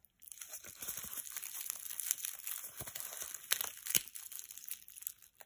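A plastic mesh net bag of Mini Babybel cheeses and its label being pulled and torn open by gloved hands: steady crinkling and rustling, with two sharper snaps near the end.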